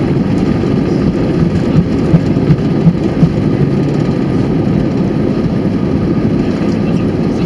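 Loud, steady cabin noise inside an Airbus A320-214 landing: engine and airflow noise with a deep rumble, and a few brief thumps between about two and three and a half seconds in.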